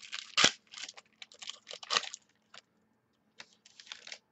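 Trading cards being flipped and slid against one another in the hands: a run of short clicks and scraping rustles, with a louder snap about half a second in and a brief pause past the middle.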